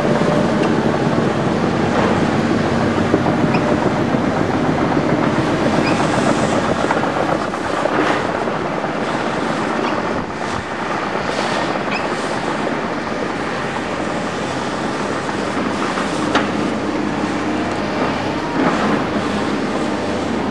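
Tracked hydraulic excavators with their diesel engines running under load, with steady engine hum and repeated clanking and clattering of steel tracks and rock spoil as they dig and travel over the spoil.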